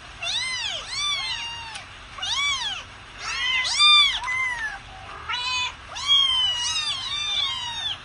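Kittens meowing over and over: about eight high-pitched meows that each rise then fall, some overlapping as if from more than one kitten, the loudest about four seconds in.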